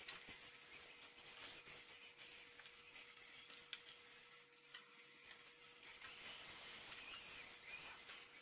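Faint scuffing of RC drift cars' hard tyres sliding on foam floor mats, with scattered light clicks and knocks and a faint steady tone underneath.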